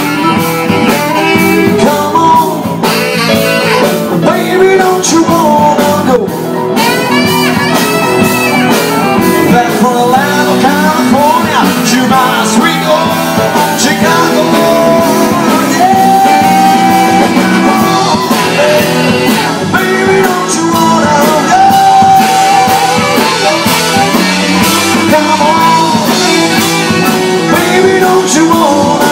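Live blues band playing loudly, with electric guitars.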